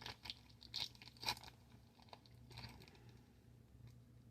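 Faint scattered clicks and crackles, about half a dozen short ones, mostly in the first second and a half, over a low steady hum.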